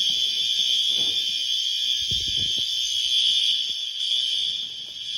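System Sensor HRA fire alarm horns sounding continuously on test, a loud, harsh, high-pitched blare with no break. A few low knocks come about two seconds in.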